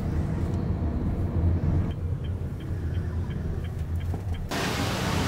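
Low steady rumble of a taxi's cabin while driving, with a turn signal ticking about three times a second from about two seconds in. Near the end it cuts abruptly to a steady hiss.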